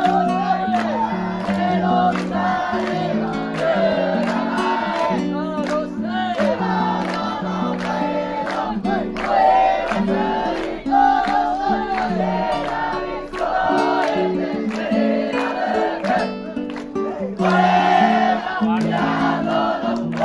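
Music: singing over an instrumental accompaniment with a regular beat.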